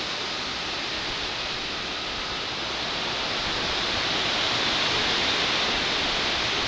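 Hurricane-force wind: a steady rushing hiss that slowly grows louder.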